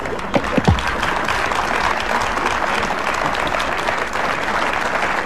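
Audience applauding, with two low tabla strokes falling in pitch about half a second in.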